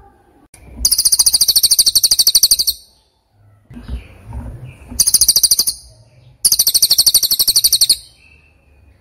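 A bird's rapid, high-pitched trill, heard three times: a long burst, a short one, then another long one.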